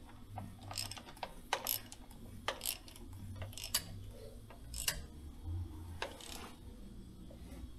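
Faint, irregular metallic clicks and clunks as the crankshaft of the Case IH Magnum 7250's Cummins engine is turned by hand with the new pistons fitted, the pistons travelling in their bores. A steady low hum runs underneath.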